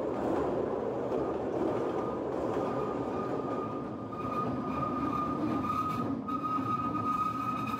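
Narrow-gauge train running along the track, heard from an open-air passenger car: a steady rolling rumble of wheels and rails. About halfway through, a steady high squeal from the wheels joins in and grows louder.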